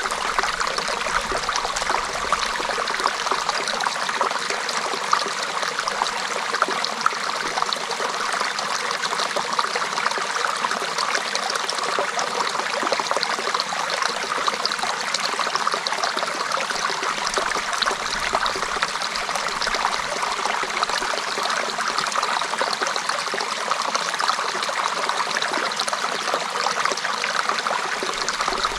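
A small stream flowing and trickling over stones, a steady babbling with many small splashes.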